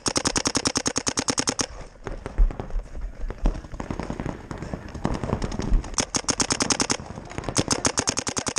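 Paintball marker firing rapid strings of shots, about a dozen a second: one string in the first second and a half, then two more near the end.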